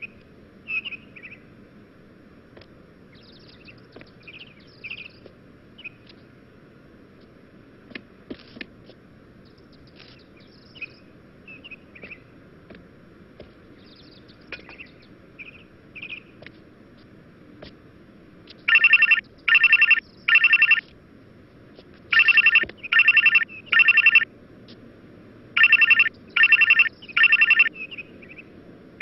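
Phone ringtone: faint short chirps over a low hiss, then loud electronic ringing that starts about two-thirds of the way in and comes in groups of three bursts.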